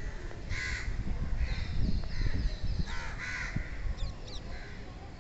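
Crows cawing, several short harsh caws spread across a few seconds, over a steady low rumbling noise.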